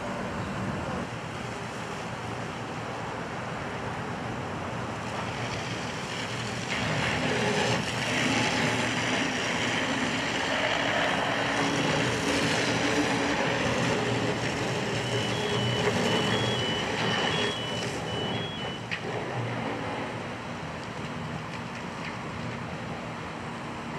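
Fire hoses spraying water onto a burning garbage truck: a steady rushing hiss over the drone of running engines, louder through the middle stretch. A backup beeper sounds for a few seconds a little past halfway.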